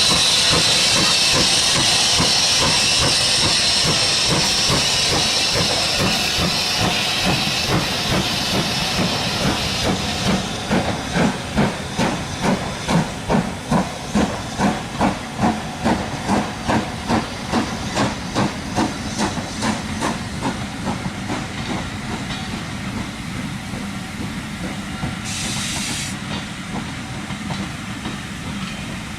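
BR Standard 5MT 4-6-0 steam locomotive 73082 'Camelot' hissing loudly with escaping steam, then exhausting in a steady beat of about two chuffs a second as it works away, fading out. A short hiss of steam near the end.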